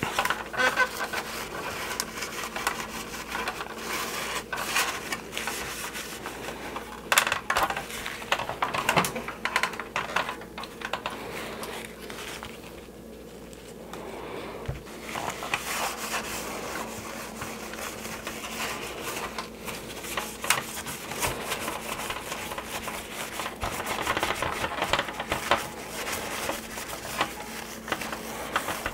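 A rag rubbing over the hard plastic body of a 1983 G.I. Joe Skystriker toy jet as it is wiped down with baby oil, with frequent small clicks and knocks as the toy is handled and shifted on the bench. It goes quieter for a few seconds about halfway.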